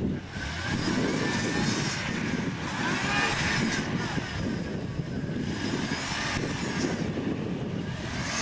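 An off-road vehicle's engine revs, its pitch rising and falling repeatedly under a steady rumble.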